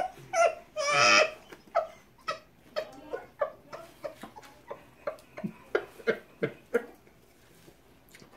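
A woman laughing: a loud, high-pitched squeal of laughter about a second in, then stifled laughs in short pulses, two or three a second, dying away near the end.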